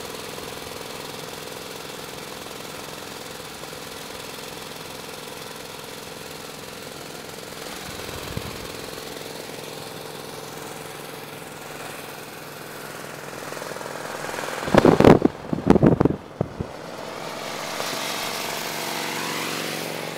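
Vintage 1915 Harley-Davidson motorcycle running at road speed alongside a moving van, a rapid steady engine beat over road noise. About fifteen seconds in, a few loud blasts break in. After them the sound swells and rises in pitch near the end as a second vintage motorcycle draws close.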